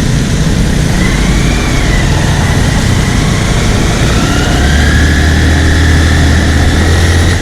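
Steady road-traffic and vehicle engine noise heard on the move, with wind rumbling on the microphone; a steadier low drone comes in about halfway through.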